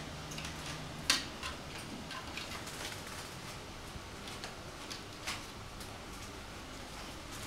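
Quiet room with a few scattered light clicks and taps, the sharpest about a second in and another near five seconds.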